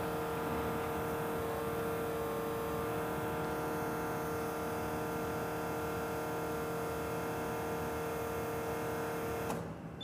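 Espresso machine pump running at a steady hum while an espresso shot is pulled, cutting off about nine and a half seconds in as the shot ends.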